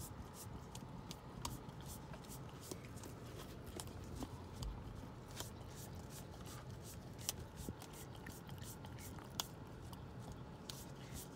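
A husky puppy licking whipped cream out of a paper cup: a run of quick, irregular wet licks and smacks.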